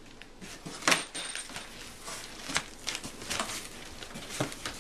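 Cardboard shipping box being opened and the packaged items inside handled: rustling with a sharp knock about a second in, then a string of smaller clicks and knocks.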